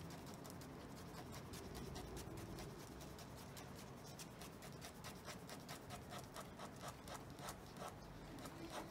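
Ballpoint pen scratching on paper over a clipboard in quick, repeated shading strokes, several a second, faint.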